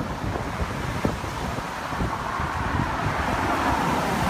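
Strong storm wind buffeting the phone's microphone in uneven gusts, with a swelling rush of noise in the second half.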